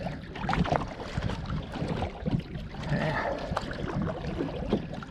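Kayak moving through water: paddle strokes splashing and water washing against the hull, with irregular splashes and knocks.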